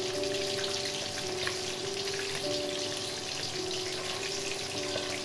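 Fish deep-frying in hot oil in a wok: a steady bubbling sizzle with fine crackles throughout. Background music of slow, held notes plays under it.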